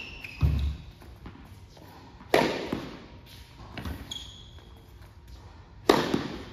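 Tennis rally in an indoor hall: sharp racket-on-ball hits, the loudest about two seconds in and near the end, with quieter ball bounces between. Each hit echoes off the hall, and a brief shoe squeak comes about four seconds in.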